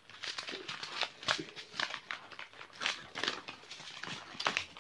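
A thin plastic bag crinkling as it is handled: a run of short, irregular crackles.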